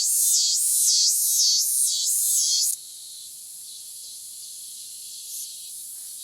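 A cicada singing: a loud, high-pitched buzzing song that pulses about twice a second, then stops suddenly a little under three seconds in, leaving a fainter steady insect hiss.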